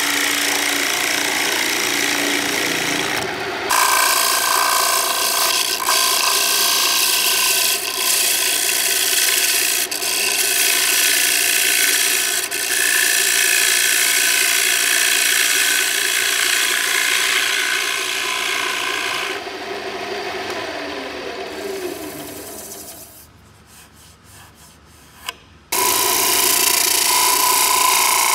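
A steel gouge cutting the face of a walnut plate spinning on a wood lathe: a steady rough scraping of the tool edge on the wood over the lathe's running. About three-quarters through the sound falls away for a couple of seconds, then the cutting comes back at full level.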